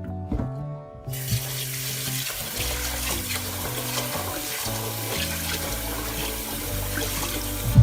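Tap water running into a sink, starting about a second in and cutting off suddenly near the end, while glutinous rice is rinsed; background music plays underneath.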